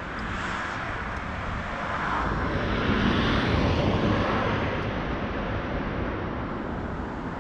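A vehicle passing on the street, its noise swelling to a peak about three to four seconds in and then fading, over steady city traffic noise.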